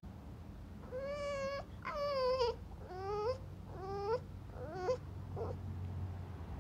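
French bulldog whining: five short, high whines starting about a second in, the later ones rising in pitch at the end, then a faint short one. Impatient whining at being made to wait to go out.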